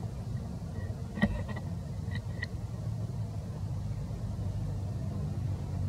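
A steady low rumble, with a few short high-pitched chirps in the first two and a half seconds and a single sharp click just after a second in.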